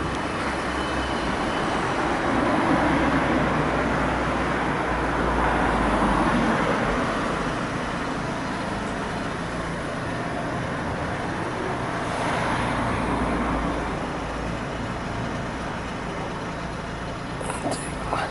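Road traffic on a city street: vehicles pass one after another, the noise swelling and fading as each goes by, with a short sharp click near the end.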